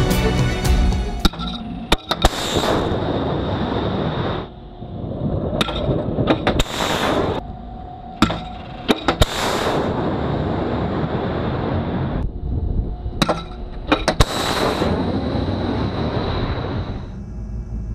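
Several RIM-116 missiles launched from a SeaRAM close-in weapon system on a warship: sudden blasts of rushing rocket-motor noise, each about a second long, with sharp cracks in between.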